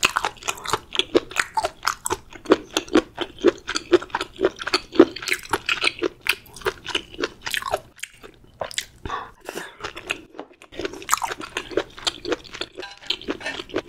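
Close-miked chewing and biting of food: a rapid run of crunchy mouth clicks, pausing briefly about eight and ten seconds in.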